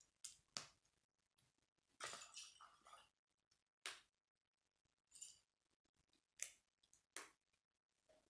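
Plastic K'nex construction pieces being handled and snapped together: a series of separate faint clicks, with a longer clatter of pieces about two seconds in.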